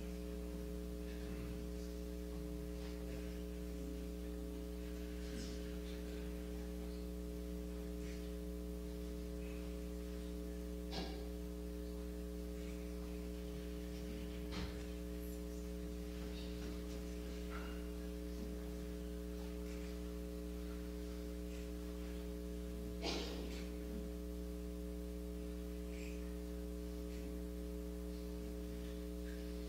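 Steady electrical mains hum, with a few faint clicks and knocks over it, the strongest about 23 seconds in.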